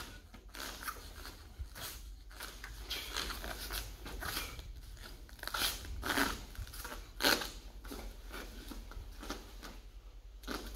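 Taekwondo uniform swishing and snapping with fast kicks and strikes, with bare feet on foam mats: a series of sharp snaps, the strongest a little past the middle and one near the end.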